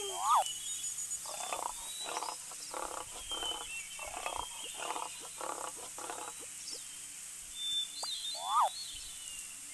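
An animal calling in a run of about ten short, evenly spaced pulses lasting some five seconds, with a quick chirp-like sweep near the start and another near the end.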